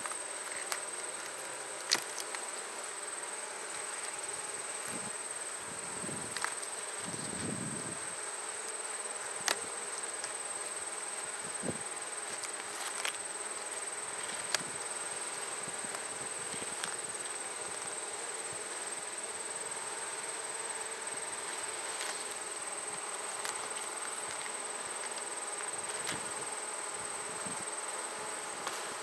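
Honey bees buzzing steadily around an opened hive, with a few sharp clicks and knocks about 2, 9 and 14 seconds in.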